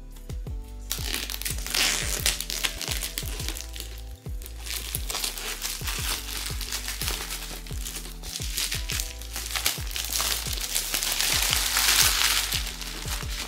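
Blind-box packaging being unwrapped, its plastic crinkling and crackling, starting about a second in and loudest near the end, over background music.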